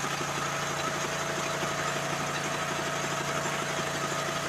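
Small Honda GX petrol engine on a compact drilling machine, running steadily at an even speed.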